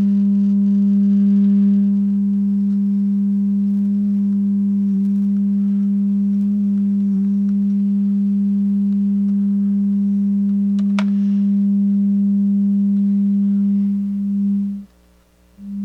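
Loudspeaker driven by the repaired Orb Audio Super 8 plate amplifier, playing a steady low sine test tone from a signal generator: the amplifier is passing signal again. There is a small click about eleven seconds in, and near the end the tone cuts out for about half a second, then comes back.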